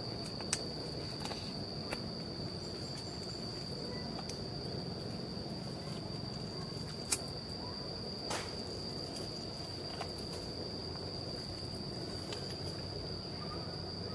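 An insect's steady, unbroken high-pitched buzz over a low background rumble, with a few sharp clicks, the loudest about half a second and about seven seconds in.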